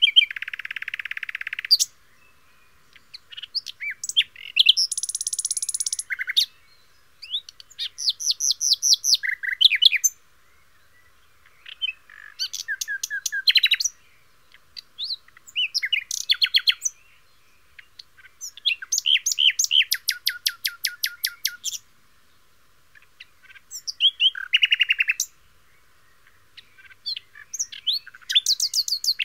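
A succession of recorded bird calls and songs from different species, each played for one to three seconds with short silent gaps between. They are high chirps, trills and fast runs of repeated notes.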